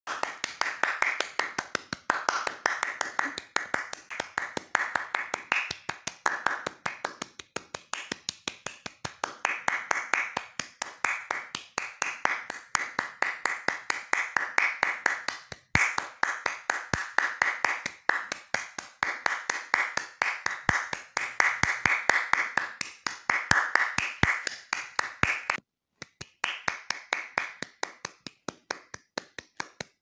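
Hands clapping in quick, distinct claps, about six a second, in runs of a few seconds with short breaks between them. About four seconds before the end the claps stop briefly, then come back slower and sparser.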